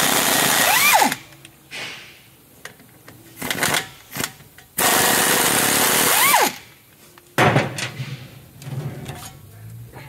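Pneumatic wrench loosening the brake caliper bolts: two loud runs of about a second and a second and a half, each ending with a pitch that sweeps up and falls away, with short blips of the tool between them. Quieter clicks of metal parts follow near the end.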